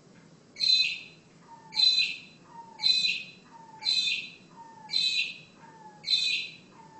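A bird at the window making six harsh, hissy sounds about a second apart, each followed by a faint short falling note.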